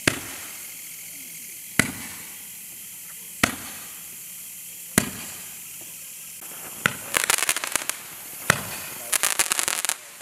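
Blazin Fireworks Neutron Emission 10-shot Roman candle firing, six sharp shots about a second and a half apart. From about seven seconds in, the crackling stars crackle in two rapid clusters between shots.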